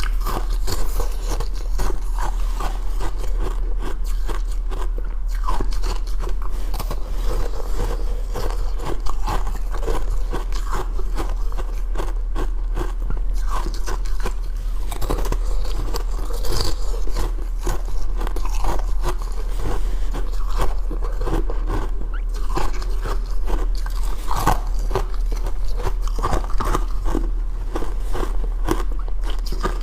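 Ice being bitten and chewed: a steady run of crunches and cracks.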